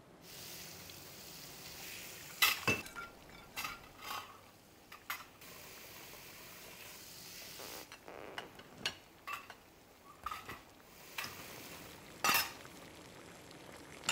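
Kitchen cooking sounds: food sizzling in a pan while metal utensils clink and scrape against pots and dishes. The sizzle dies down about eight seconds in, and scattered clinks go on.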